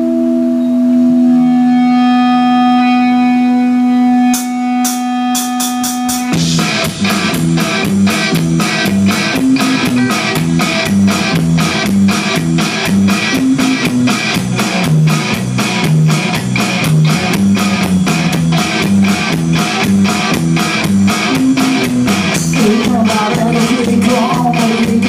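Live rock band: a held guitar chord rings for about six seconds, a few sharp clicks follow, then the drums and guitars come in together and play on in a steady rhythm.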